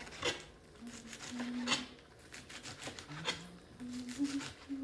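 A woman humming a slow tune in held notes while kitchen utensils click and knock every second or so as she works.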